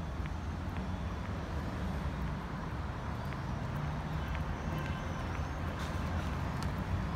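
City street ambience: steady traffic noise from vehicles on a nearby road.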